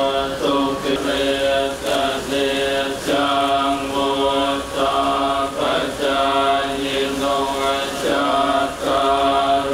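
A group of Thai Buddhist monks chanting in unison into a microphone, a low, nearly monotone recitation held on one pitch with short breaks between phrases.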